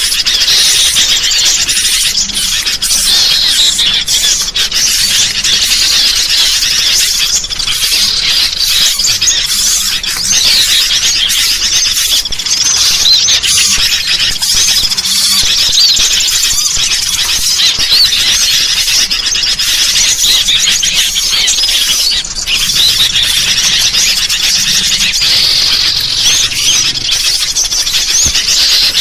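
Dense, unbroken chorus of harsh, rapid scolding calls from agitated sooty-headed bulbuls, mixed with the high chirps of small birds. This is a bird-lure recording meant to draw in small songbirds.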